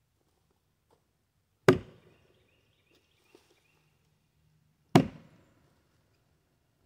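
Two chopping blows of a Fiskars X27 splitting axe into a red oak log, sharp wooden thwacks about three seconds apart, each with a brief ringing tail.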